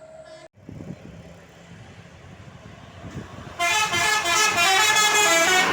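Bus 'telolet' horn, a Basuri multi-tone musical horn, playing a quick run of changing notes. It comes in loud about two-thirds of the way in, over a low hum of engine and traffic.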